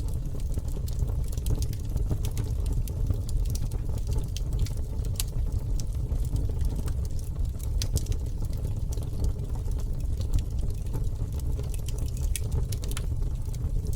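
Campfire burning: a steady low rumble of flames with frequent scattered sharp crackles and pops from the burning wood.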